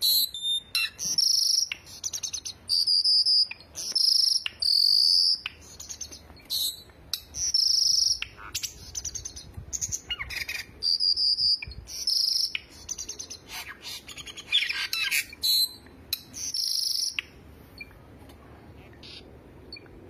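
Caged cucak songbirds singing: a fast run of short, high whistled and chirped phrases, some quick repeated notes, stopping about three seconds before the end.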